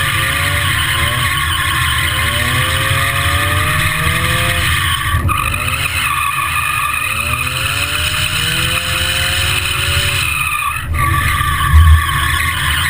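Mazda MX-5 Miata's four-cylinder engine revving up in three long rising pulls while the car drifts, with tyres skidding on the tarmac. Wind buffets the outside-mounted microphone with a heavy rumble and a loud thump near the end.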